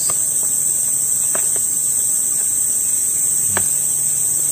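A steady, high-pitched insect chorus, with a few faint cracks as a durian's spiny husk is pried apart by hand, the clearest about three and a half seconds in.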